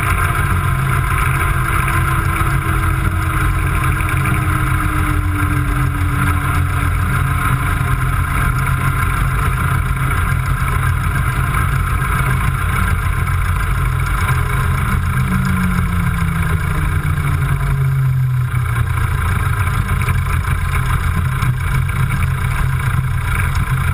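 Wittman Tailwind's piston engine and propeller running at low power during the landing rollout and turn-off, a steady engine drone whose pitch sags slowly twice.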